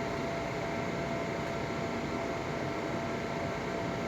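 Steady background hiss with a faint constant hum, unchanging throughout and with no distinct events.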